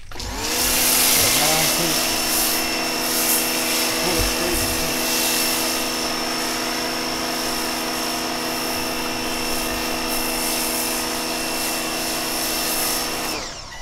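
Pressure washer running steadily with a foam cannon, hissing as it sprays degreaser foam onto the tractor, with a steady motor hum underneath. It starts just after the beginning and stops near the end.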